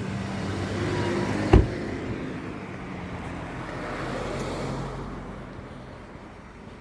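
Cars on a road, engines and tyres swelling as they pass and fading away, with one sharp knock about a second and a half in.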